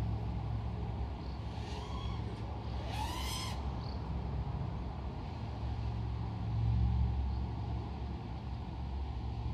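Orqa Dream X 5-inch FPV quadcopter's motors and propellers running in flight, a steady hum that swells briefly about seven seconds in as throttle comes up. There is a short rising chirp about three seconds in.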